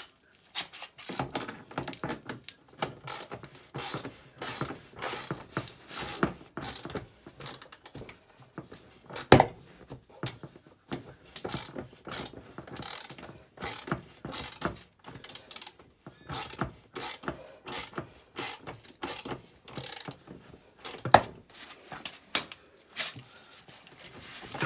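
Ratchet wrench clicking in quick runs as the bolt of an ATV's swingarm pivot is worked loose, with two louder knocks in between.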